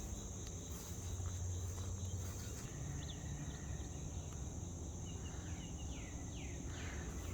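Outdoor ambience of insects trilling steadily at a high pitch, joined about five to seven seconds in by a run of short, downward-sweeping bird calls.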